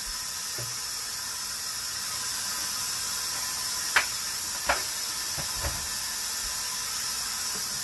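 Steady high hiss, with two sharp clicks about four seconds in and a dull knock soon after as kitchen items are handled on the counter.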